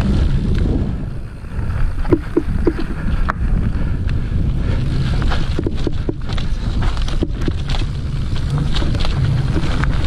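Mountain bike rolling over a dry dirt trail, picked up by the ride camera: a steady low rumble of tyres and wind buffeting the microphone, with scattered clicks and knocks as the bike jolts over the ground.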